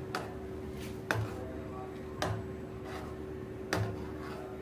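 Spoon stirring milk in a steel frying pan, knocking against the pan about four times at uneven intervals, each knock a sharp click with a dull thud, over a steady hum.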